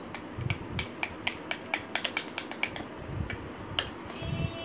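Metal spoon clinking against a glass dessert bowl while stirring a thick slime mixture: quick, irregular clinks, several a second, stopping a little before the end.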